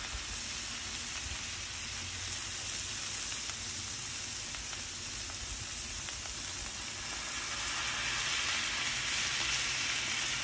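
Smash-burger patties and thin-sliced onions sizzling on a hot Blackstone flat-top griddle while they are pressed flat with a burger press. The steady hiss grows a little louder about two-thirds of the way through.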